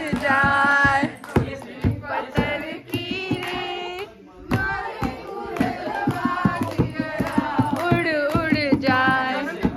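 A group singing a Hindi film song, accompanied by steady rhythmic hand clapping.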